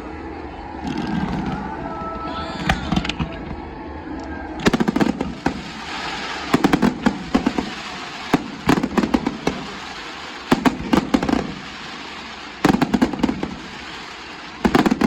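Aerial fireworks bursting. About a third of the way in, clusters of rapid crackling bangs begin, coming again every second or two.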